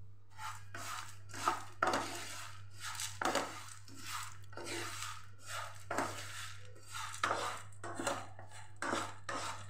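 A spatula stirring and scraping dry chana dal, urad dal and flattened rice (poha) around a nonstick frying pan while they dry-roast, the lentils and flakes rattling against the pan in repeated strokes, about three every two seconds.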